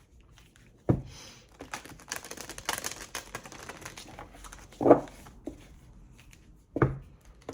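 Oracle cards being shuffled and handled: a stretch of rustling, riffling cards, with three sharp taps, about a second in, near the middle and near the end, as cards are knocked together or laid down on the table.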